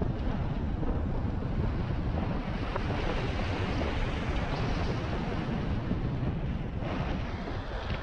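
Wind buffeting the microphone of a rider moving along on an electric unicycle: a steady, deep rushing noise.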